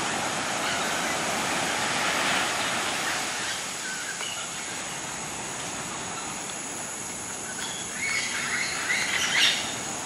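Steady rushing surf, with harsh parrot calls over it, several close together near the end, the last one the loudest.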